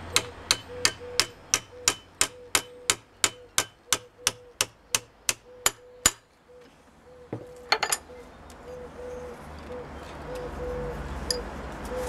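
Steady hammer blows, about three a second, driving a very dry sycamore stick through a steel dowel plate to form an 8 mm dowel. The blows stop about six seconds in, and a short clatter follows near eight seconds.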